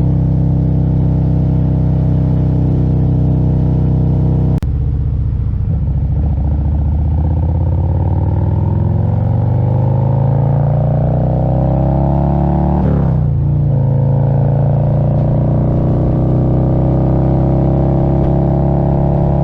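Harley-Davidson Road Glide's Milwaukee-Eight 117 V-twin running under way at a steady speed. After a sharp click about four and a half seconds in, its pitch climbs steadily as the bike accelerates. About two-thirds of the way through the pitch drops and recovers quickly, then it holds steady.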